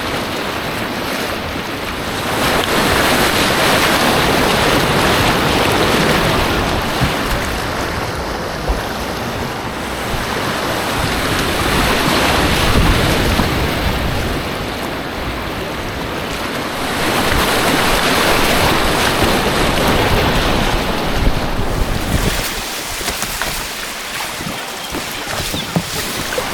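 Rushing white water on an artificial white-water course, swelling louder and fading back several times as the kayak runs the rapids. Wind noise is on the microphone.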